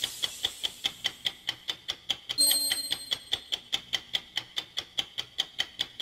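Clock ticking fast and evenly, about five ticks a second. A brief ringing tone sounds over the ticks about two and a half seconds in.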